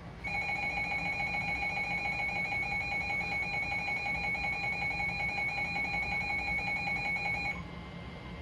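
NOAA Weather Radio emergency alert attention tone: a steady, shrill alarm of several fixed pitches held for about seven seconds, starting just after the beginning and cutting off abruptly. It signals that a warning broadcast follows, here a severe thunderstorm warning.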